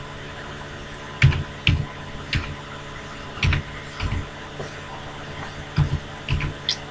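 Computer keyboard keys pressed one at a time in slow, irregular typing, about eight separate keystrokes, over a faint steady hum.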